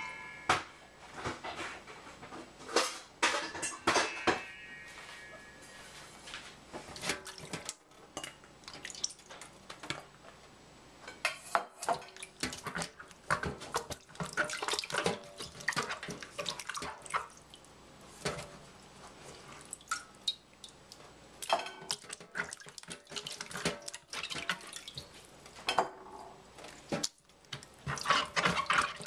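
Water splashing and sloshing in a stainless steel saucepan as whole oranges are rubbed clean by hand, coming in irregular bursts with sharp knocks of fruit and hands against the pot.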